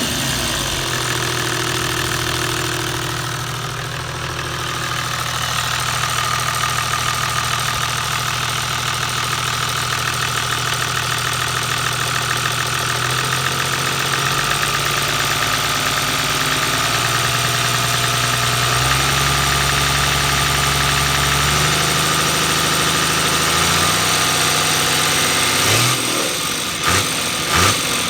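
Toyota 1HD-FT six-cylinder turbo-diesel idling with a rattle, its speed stepping up and down slightly a few times; the owner suspects the rattle comes from the timing gears or the injection pump. A few sharp knocks near the end.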